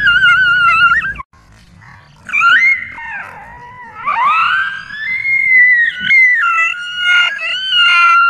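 A frightened dog screaming in long, high-pitched, wavering cries. The cries break off sharply about a second in, then rise again into a long held shriek.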